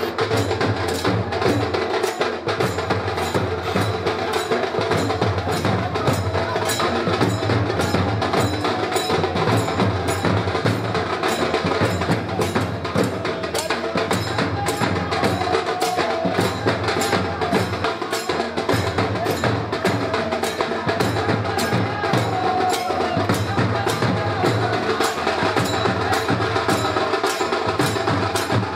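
Procession music of drum and sharp clicking percussion beating steadily, about two to three strikes a second.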